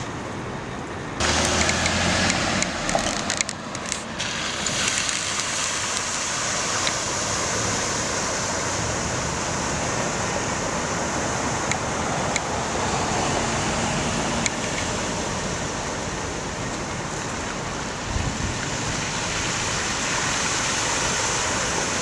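Floodwater rushing through rapids in a normally dry desert river swollen by heavy rain, a steady rushing noise that jumps louder about a second in.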